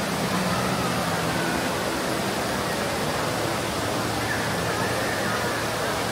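Busy shopping-mall ambience: a steady rushing hiss with a murmur of many distant voices.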